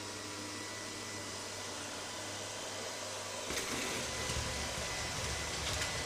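LG CordZero R9 robot vacuum running with a steady whine of its motor while it drives across a tile floor. About three and a half seconds in it gets louder and rougher, with a low rumble and scattered clicks.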